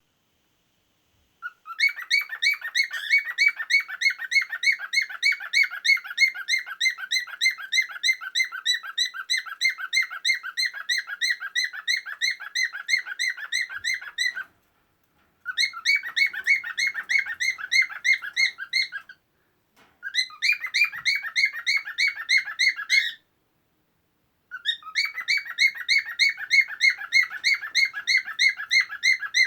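Male cockatiel singing its courtship song to a female: quick, evenly repeated chirping notes, about four a second, in four bouts with short pauses between them.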